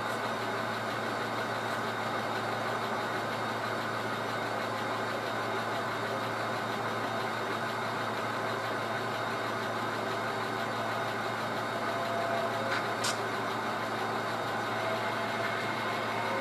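Sound-equipped HO scale model diesel locomotives, a pair of EMD 'Jeep' road switchers, running notched up under load while shoving a long string of freight cars: a steady diesel engine drone, with a single sharp click near the end.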